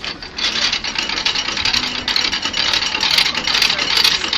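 Water rushing through the open paddles of a canal lock as the lock empties, a loud, steady hiss that swells up about half a second in.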